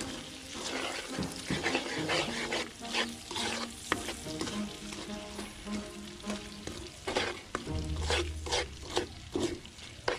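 Metal spoon stirring and scraping butter caramel bubbling in a non-stick wok, the syrup sizzling steadily under repeated scraping strokes.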